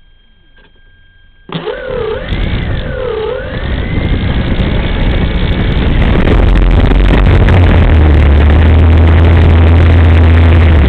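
Yak 54 Carbon-Z RC plane's brushless electric motor and propeller starting suddenly about a second and a half in. The whine wavers down and up twice, then runs loud and steady at high throttle, with a heavy rush of prop wash over the nose-mounted camera.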